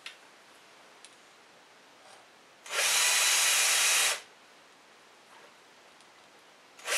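Cordless drill spinning a 4.8 mm round chainsaw file against a chain tooth, sharpening a dull chainsaw chain. It gives one whirring, grinding burst of about a second and a half in the middle, then a pause, and a second burst starts near the end. A light knock is heard at the very start.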